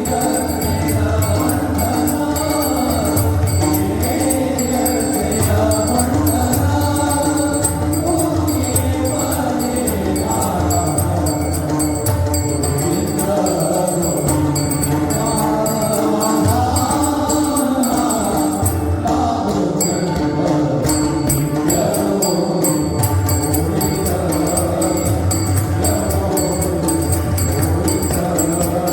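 Marathi devotional abhang sung by voices with a choir-like sound, accompanied by pakhawaj and tabla drums. The music plays continuously at a steady level.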